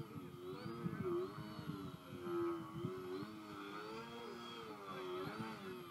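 Electric motor and propeller of a small RC foam 3D plane whining, the pitch swinging up and down every half second or so as the throttle is constantly worked to hold the plane in a torque roll.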